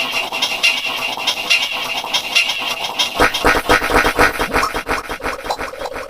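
Heavily edited remix audio: a sound clip chopped into a rapid, rhythmic stutter in Sparta-remix style, with a deep pulsing beat coming in about three seconds in.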